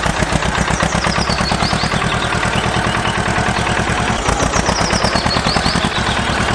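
Tractor diesel engine chugging at a steady, fast, even rhythm, the sound of a tractor driving along.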